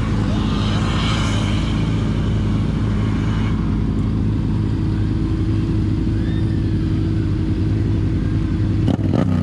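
Car engine running steadily at idle. Near the end its pitch begins to slide.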